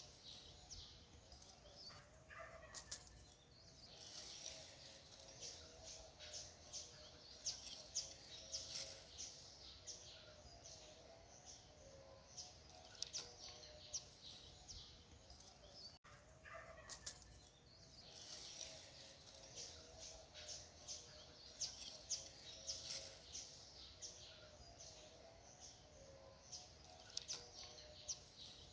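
Many small birds chirping and twittering in quick, overlapping calls, fairly faint, with a low wavering hum of other calls underneath.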